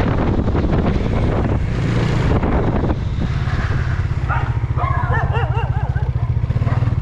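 Bajaj Dominar 400's single-cylinder engine running under the rider at low speed, easing into a steady low pulsing at about three seconds in. From about four seconds in, dogs bark with wavering calls over it, reacting to the passing motorcycle.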